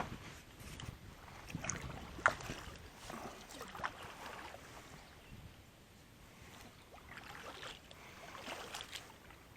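Faint water sounds around a small boat, with soft splashes and a few short light knocks and drips.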